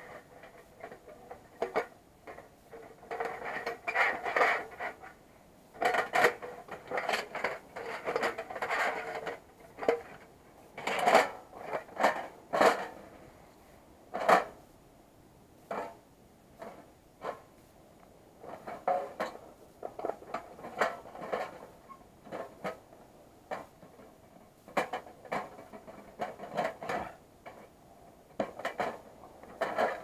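Panels of a Tentipi Hekla 7 folding steel firebox clanking and scraping against each other as they are folded flat and set back up by hand, with irregular sharp metal knocks and stretches of sliding and rubbing between them.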